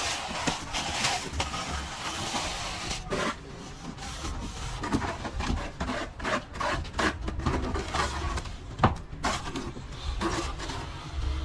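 Plastering trowel scraping and rubbing over plaster in irregular strokes, with a sharp knock about nine seconds in.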